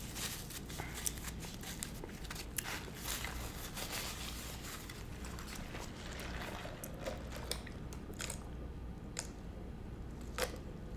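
A person biting and chewing crispy fried chicken, the crust crunching and crackling in many small, irregular clicks.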